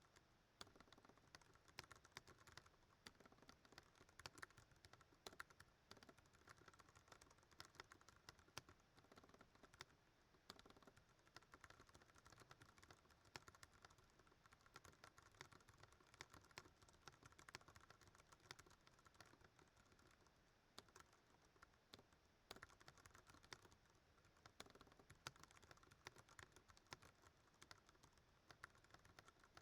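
Ducky One 2 Mini mechanical keyboard with Cherry MX Brown switches being typed on fast and without a break, a dense, even stream of faint key clicks at around 100 words a minute.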